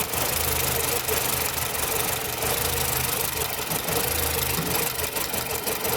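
Nissan Platina's four-cylinder engine idling rough, its steady hum stumbling and dropping out every second or so: a misfire as the spark on cylinder 2 is drawn off to ground.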